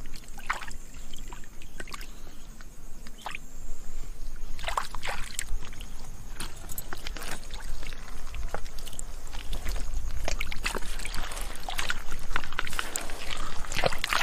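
Hands splashing and sloshing in shallow muddy water while grabbing small fish, in irregular short slaps that come thicker in the second half.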